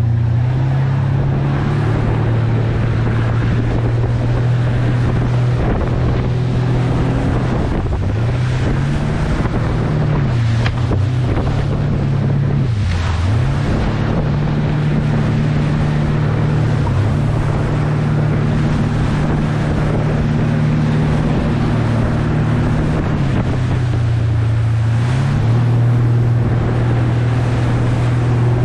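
A towboat's engine running underway. Its note holds steady but dips in speed and recovers a few times. Wind buffets the microphone and water rushes past the hull.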